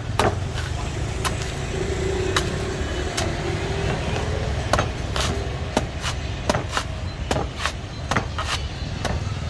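Sharp chops of a blade striking a fresh young coconut, irregular and quickening in the second half, over a steady low rumble of traffic.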